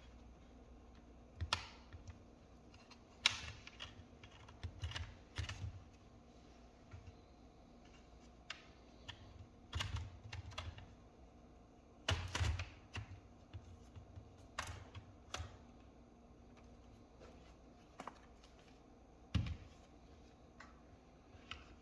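Scattered, irregular clicks and taps on a laptop, sometimes in small clusters, over quiet room tone.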